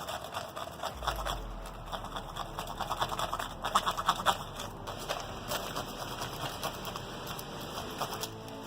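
Heated pumpkin-carving tool scraping and crackling as it is worked through a 3D-printed PLA plastic pumpkin shell: an irregular run of short scratchy clicks, busiest about midway.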